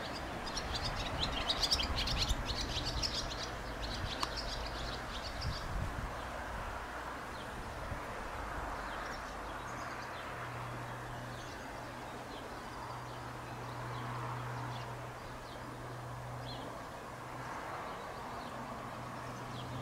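Small birds chirping, busiest in the first five seconds and then scattered, over a faint steady low hum that grows a little stronger from about ten seconds in.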